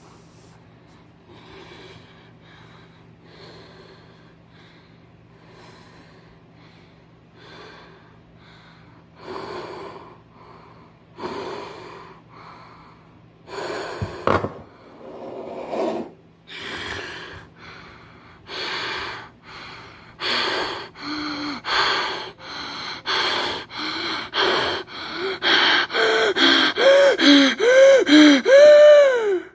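A person breathing heavily, the breaths slowly growing louder and quicker until they become rapid, loud gasps about twice a second, voiced with a rising-and-falling pitch near the end, before cutting off suddenly.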